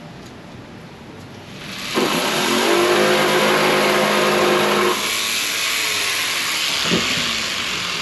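Ridgid corded jigsaw starting up and cutting through a thin hardboard sheet, its motor running at a steady pitch for about three seconds, then a lighter, rougher stretch with a single knock about seven seconds in.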